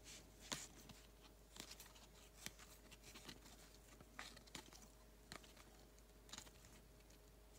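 Near silence, with faint, irregular clicks about once a second as Topps Chrome baseball cards are shuffled and flipped by hand. A faint steady hum lies underneath.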